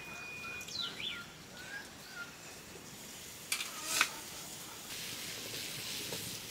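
Birds calling: a short steady whistle, then quick falling chirps in the first two seconds. Two sharp clacks about half a second apart come a little past the middle, and a steady high hiss starts near the end.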